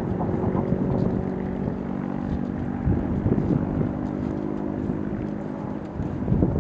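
Steady engine drone holding one even pitch throughout.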